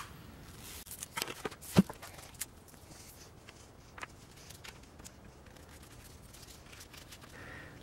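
Light clicks and taps of a digital readout scale being handled and set against the back of a milling machine table, the loudest a sharp knock just under two seconds in, over faint hiss.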